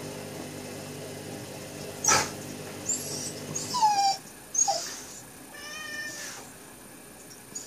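A pet in a small tiled bathroom giving several short, high, wavering whines and squeaks in the second half. Under the first half runs a steady low hum that stops about halfway through, with a single click about two seconds in.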